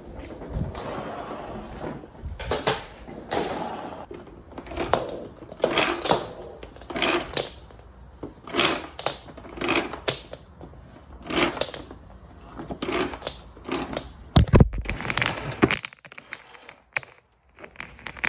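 Canister vacuum cleaner being tugged and jostled one-handed on a wooden floor while a part refuses to come free: a series of rattling knocks and scrapes, roughly one a second, with a heavier thump near the end.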